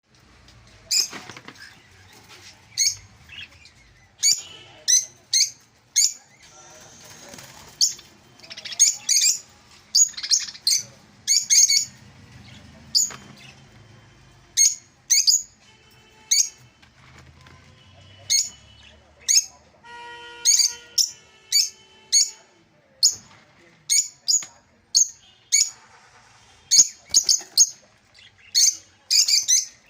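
Ornamental cage birds chirping: short, sharp, high-pitched calls repeated every second or so, sometimes in quick pairs and runs.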